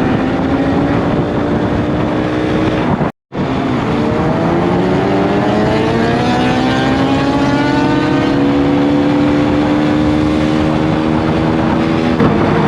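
Motorcycle engine pulling under way, its pitch climbing slowly as the bike accelerates and then dropping near the end. The sound cuts out completely for a moment about three seconds in.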